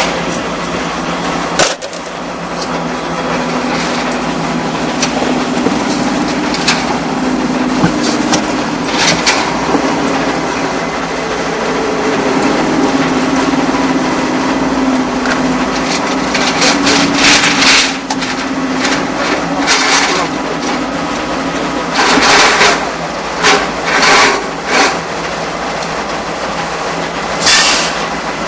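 Small propeller aircraft's piston engine running steadily on the ground, heard from inside the cockpit, with a wavering low hum. Several short, loud bursts of noise come in the second half.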